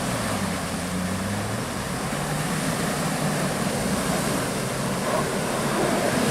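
A vehicle driving. A steady engine hum sits under heavy wind and road noise.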